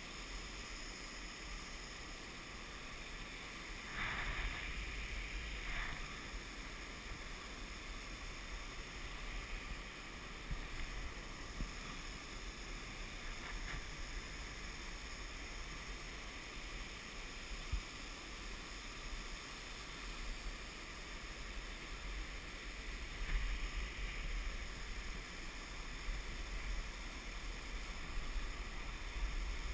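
Wind buffeting the action camera's microphone as the rider swings through the gorge, over the steady rush of a whitewater river below. The wind swells louder a few seconds in and again later, as the swing passes through its arc.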